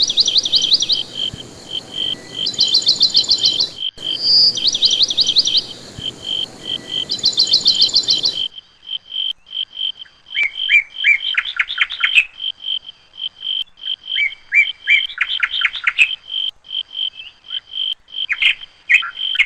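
Songbirds singing in repeated trilled phrases over a steady pulsed chirping of insects. About eight seconds in, the background hiss drops away abruptly and a different bird's lower, grouped phrases take over.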